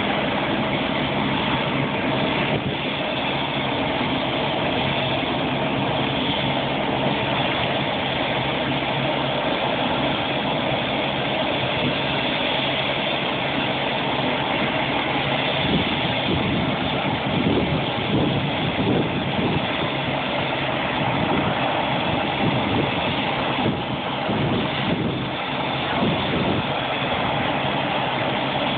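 Helicopter engine and rotor running steadily on the ground at idle, before lift-off.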